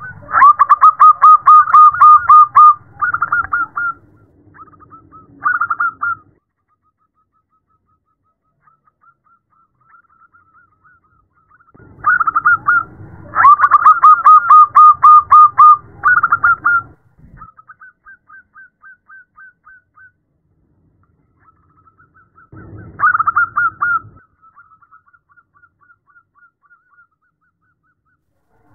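Zebra dove (perkutut) calling: loud bouts of rapid staccato cooing trills, each a few seconds long, with fainter trills and short pauses between them. The recording is presented as a female calling a male.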